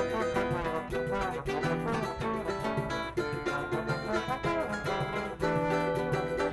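A live choro ensemble playing an upbeat tune: seven-string guitar and cavaquinho plucking with trombone, over a steady pandeiro rhythm.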